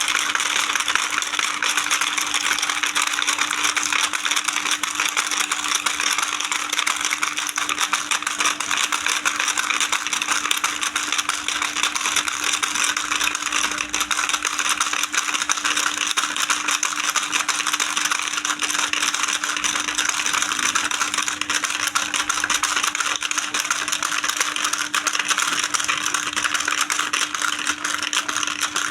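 Battery-powered plastic toy fishing game running, its plastic pieces clattering and rattling continuously over a steady motor hum.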